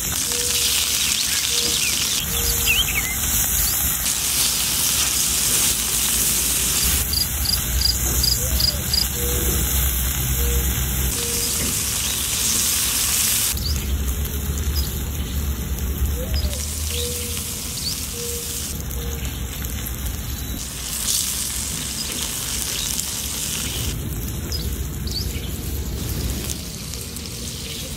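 Mantis shrimp sizzling on a hot stone slab: a steady crackling hiss that shifts in character at several cuts.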